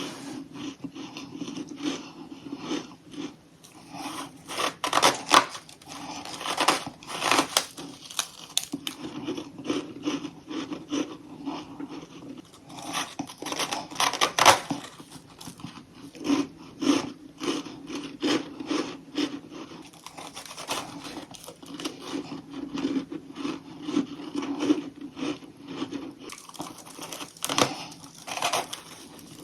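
Crunchy freezer frost from a humidifier being bitten close to the microphone: repeated sharp crunches in clusters, several a second.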